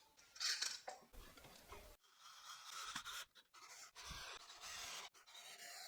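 Faint scraping and rubbing of pine pieces being handled and slid together for gluing, with a few light clicks.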